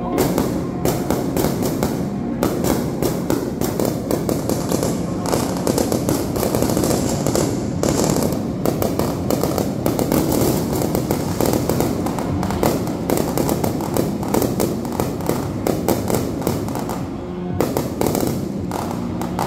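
Aerial fireworks shells bursting in quick succession, a dense, unbroken run of bangs and crackles, with music playing underneath.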